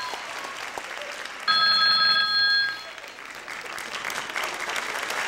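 A cell phone's electronic ringtone sounds in a steady burst of about a second, starting about a second and a half in, just after an earlier burst cuts off. Audience applause runs underneath and grows louder toward the end.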